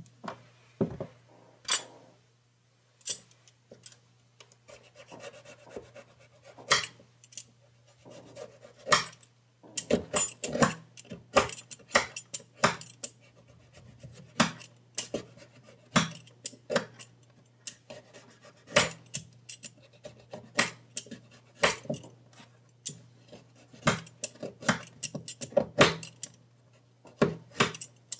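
Small knife peeling and trimming fresh ginger root on a wooden cutting board: irregular sharp clicks and scrapes of the blade against the root and board, sparse at first and coming several a second from about ten seconds in.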